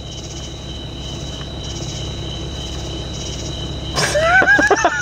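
Crickets chirping steadily, with two continuous high tones and a pulsing trill, over a low steady rumble. About four seconds in, a person's voice cuts in loudly with a wavering, pitch-bending cry.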